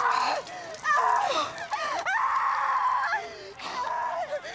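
A young woman screaming in distress: a string of high cries that slide up and down in pitch. The longest is held for about a second in the middle, and the cries grow weaker near the end.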